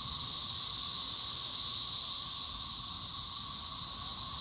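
Chorus of cicadas: a continuous high-pitched buzzing drone, steady throughout.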